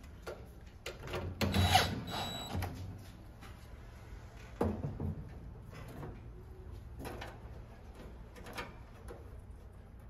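Cordless drill-driver running briefly, about a second and a half in, backing out a screw of a range hood's control panel. A few light clicks and knocks follow as the sheet-metal panel is handled and lifted out.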